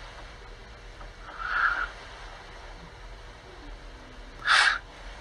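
Quiet room noise with a faint steady hum, a soft muffled sound about a second and a half in, and one short hiss-like burst near the end.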